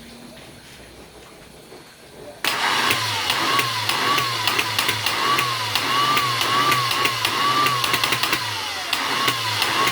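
Hyundai Starex engine being cranked by its starter motor, starting suddenly about two and a half seconds in: a starter whine that rises and falls about twice a second with each compression stroke, over a pulsing hum and sharp clicks.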